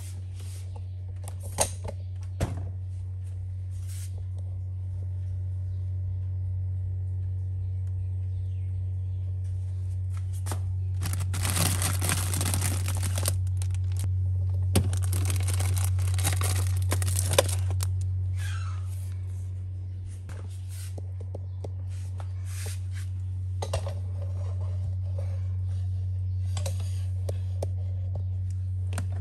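Food packaging and containers being handled inside an open refrigerator: a few sharp clicks near the start, then two loud bursts of plastic rustling and crinkling, each lasting a couple of seconds. A steady low hum runs underneath.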